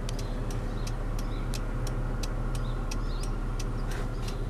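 2002 Proton Perdana's V6 engine idling steadily with a low, even hum. Light ticks sound over it about three times a second.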